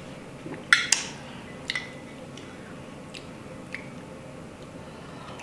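A spoon clinking against a soup bowl while soup is eaten: two sharp clinks about a second in, then several lighter clinks over the next few seconds.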